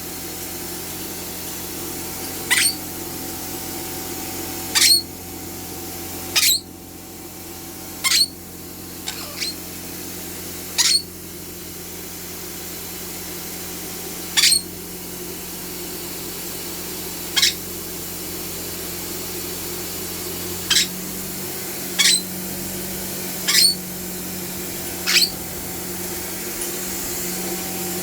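Vacuum cleaner running steadily while a pet being hoovered with it gives about a dozen short, high-pitched squeaks, one every one to three seconds.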